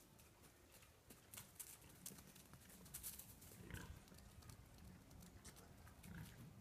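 Near silence: faint footsteps and rustling in dry leaves and grass, with a faint lamb bleat about four seconds in.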